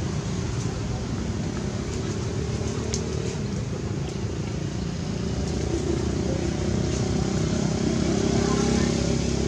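A motor vehicle engine running steadily, with a low droning hum that grows a little louder toward the end.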